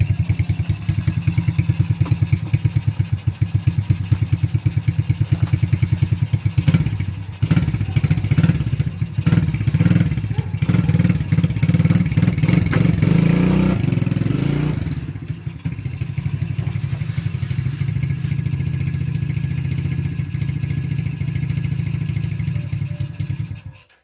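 ATV engine running with a fast, even firing pulse. For several seconds in the middle it runs louder and unevenly, then settles back to a steady idle, and it cuts off abruptly near the end.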